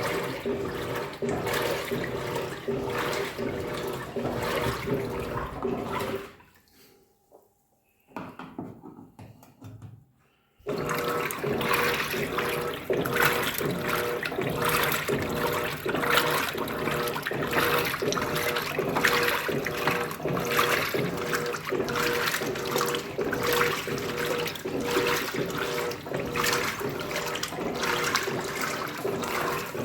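Water sloshing and churning inside an Electrolux Turbo Economia 15 kg (LTD15) washing machine during the wash, over a steady hum. It stops for about four seconds partway through, then starts again.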